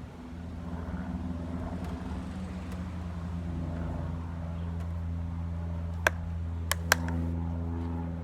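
A steady low mechanical hum, with three sharp clicks about six to seven seconds in.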